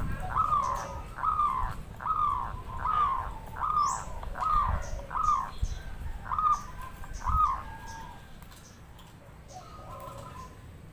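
Zebra dove (perkutut) cooing: a steady string of about ten short notes, each falling slightly in pitch, roughly one every three-quarters of a second, dying away about eight seconds in.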